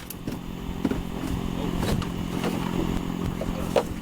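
Scattered clicks, knocks and scrapes of parts being handled and pulled loose inside a car's interior, over a steady low engine-like hum.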